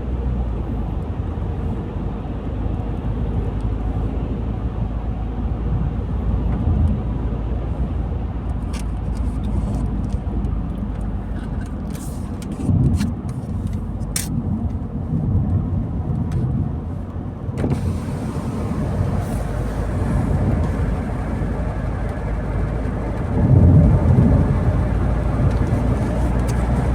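A car driving, with a steady low rumble of engine and tyre noise. A few sharp ticks come through in the middle, and the rumble swells briefly twice, the louder swell near the end.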